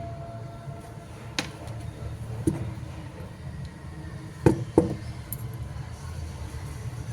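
Low steady background rumble with four sharp clicks or knocks; the two loudest come close together about four and a half seconds in.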